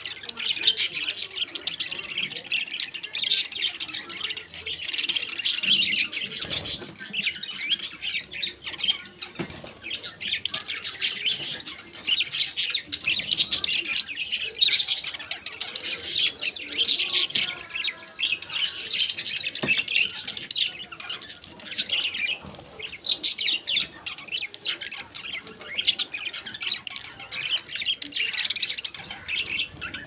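A small flock of budgerigars chattering without pause: a dense mix of quick chirps and warbles with sharper squawks here and there.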